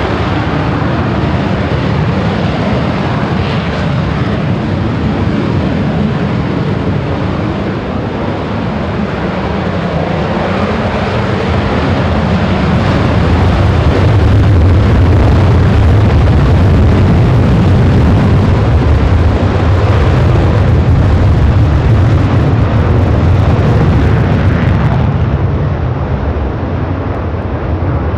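Four Blue Angels F/A-18 jets taking off together in diamond formation on afterburner: a loud, steady jet noise that swells to its loudest about halfway through as they roll, then eases slightly near the end as they climb away.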